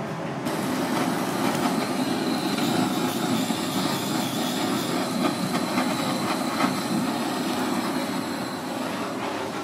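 Handheld butane blowtorch flame running steadily with a roaring hiss as it sears fish fillets on a wire grill, with small crackles throughout. It starts about half a second in.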